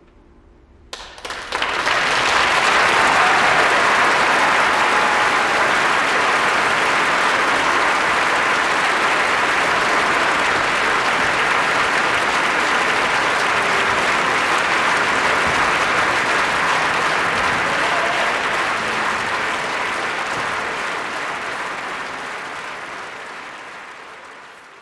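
Large concert-hall audience applauding: the clapping breaks out about a second in, swells quickly into steady, dense applause, and fades away near the end.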